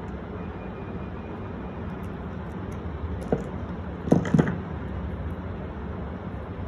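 Small metal clicks from pliers and a ceiling fan's mounting bolt and nut being handled: one click about three seconds in, then a quick, louder cluster of three about a second later, over a steady low hum.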